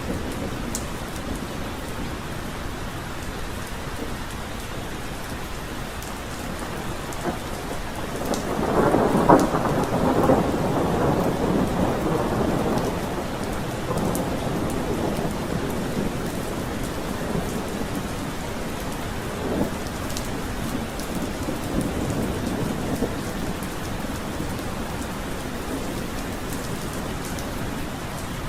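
Steady heavy rain, with a roll of thunder rumbling up about a third of the way in, peaking briefly and fading away over several seconds; a fainter rumble follows later.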